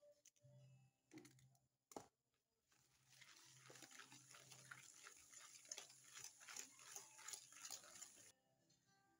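Faint rapid clicking and scraping of a wire whisk beating an egg into a brown sugar mixture in a stainless steel mixing bowl, from about 3 s in, stopping abruptly near the end; a single sharp click comes just before it.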